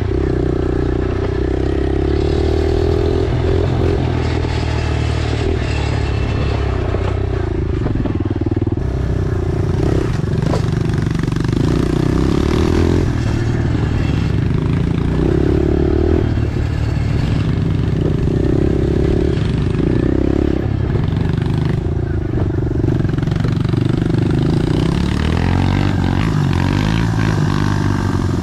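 Pit bike engine running under way at a fairly even pitch, shifting up and down a little with the throttle, with occasional knocks and rattles from the bike over the bumpy dirt trail.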